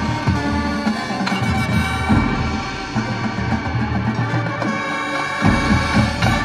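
Marching band playing held chords, with the low bass note changing about two seconds in and again near the end.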